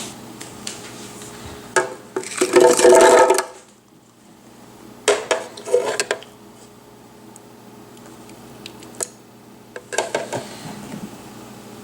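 Clinks, knocks and clatter of dishes and a blender jar in several short bursts, as smoothie ingredients are put into the blender.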